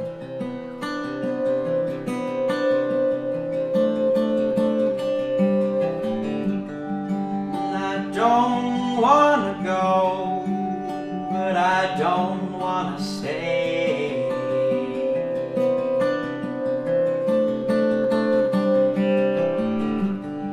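Acoustic folk music: an acoustic guitar strummed with a mandolin, and tuned water glasses (a glass harmonica) rubbed to hold one long steady tone for the first few seconds and again near the end. A man's voice sings briefly around the middle.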